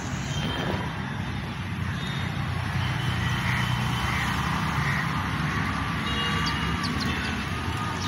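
Steady urban outdoor background: a low hum of distant traffic, with a few faint, short high tones now and then.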